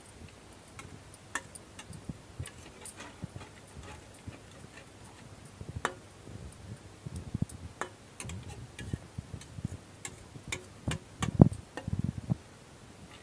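Metal spatula stirring a thin lentil-rice masala in a stainless steel kadai, clicking and tapping irregularly against the pan. Soft low thuds join in during the second half, and the loudest knock comes near the end.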